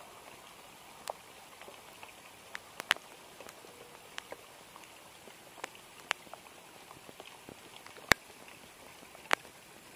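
Rain pattering lightly, with irregular sharp drop taps close by about once a second, the loudest about eight seconds in.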